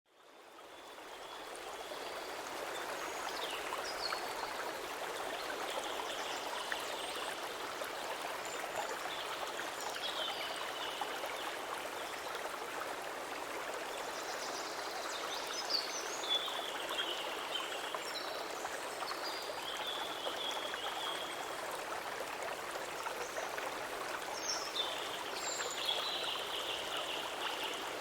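A natural flowing stream: steady rushing, trickling water that fades in over the first couple of seconds. Short high chirping calls sound over it every few seconds.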